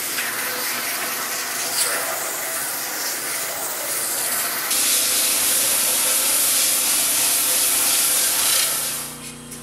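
1932 stroke sander's abrasive belt sanding a board under a hand pad, a steady rushing hiss. It grows a little louder about halfway through and fades away near the end.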